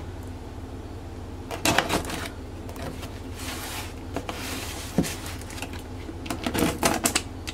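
Hands handling a cardboard shipping box: a few knocks and rustles about two seconds in, a longer scraping rasp of cardboard a little past three seconds, and a quick cluster of taps and knocks near the end.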